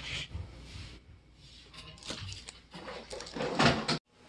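Handling noises at a dining table as dishes and food are moved, with a louder scraping rustle about three and a half seconds in; the sound cuts off abruptly just after four seconds.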